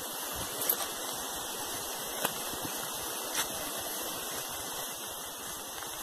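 A small forest stream running, a steady rush of flowing water, with three brief sharp clicks at about one, two and three seconds in.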